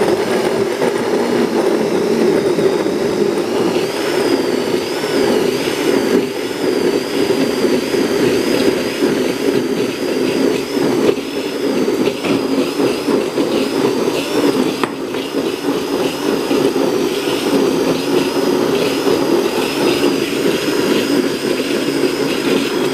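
Countertop blender running steadily, blending an avocado and milk smoothie, with a wavering high whine over the motor.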